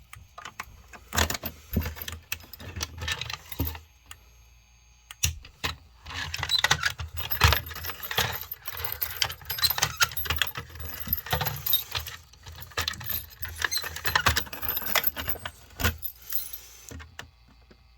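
A ring of keys jangling and clicking in irregular flurries, with small knocks and rattles of handling. There are two short lulls, one about four seconds in and one near the end.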